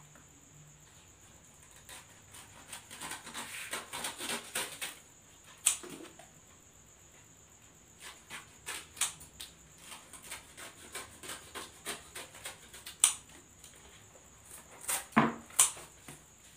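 Hands handling and rustling fresh leaves, with a few sharp clicks and snaps, the loudest two close together near the end.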